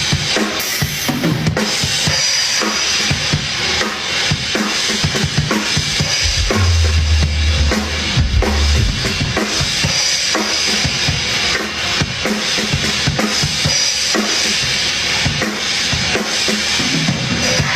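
Drum kit played at a live soundcheck, with kick drum and snare strokes throughout. A deep bass note is held for about two seconds near the middle.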